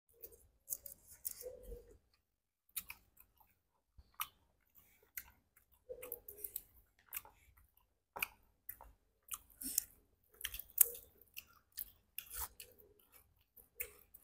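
Close chewing and lip smacking of people eating large boiled shrimp in mala sauce, with irregular sharp crackles as the shrimp shells are peeled and bitten.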